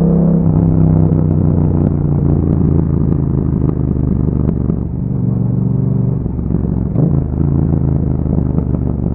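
Yamaha MT-07's 689 cc parallel-twin engine running through an Akrapovic exhaust while riding. The engine note drops in pitch about half a second in and shifts again around six to seven seconds in.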